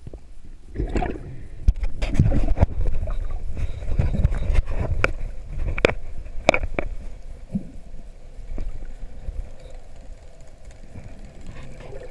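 Underwater water movement, irregular low rumbling and sloshing, with several sharp clicks and knocks in the middle seconds. It is picked up through a camera housing as a freediver handles a speared mangrove snapper and swims up toward the surface.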